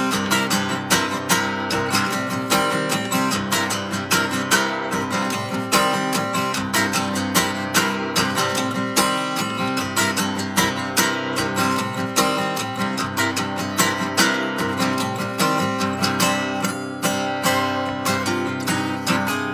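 Acoustic guitar strummed in a steady rhythm, with no voice over it.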